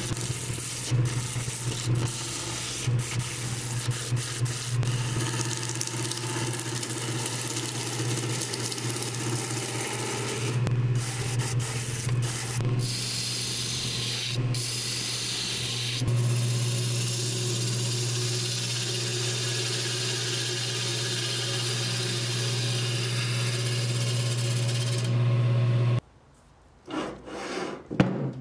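Wood lathe running, a steady motor hum under the hiss and scrape of a carbide turning tool cutting a spinning bark-on log blank, with frequent short clicks in the cut. The sound cuts off suddenly near the end, followed by a few knocks.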